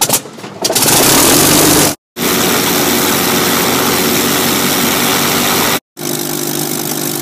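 Spitfire Mk XVI's Packard Merlin V12 aero engine running loud and steady, in several short clips separated by sudden silent cuts.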